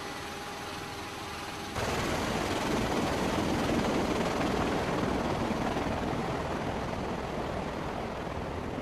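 Cabin noise of a V-22 Osprey tiltrotor: a steady engine and rotor drone with two steady tones, which changes abruptly less than two seconds in to a louder rushing roar of rotor wash and wind coming through the open rear ramp.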